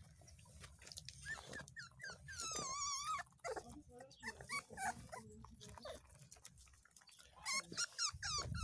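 Miniature schnauzer puppy whining in high, wavering cries: a long warbling whine about two and a half seconds in, and a run of short whines near the end.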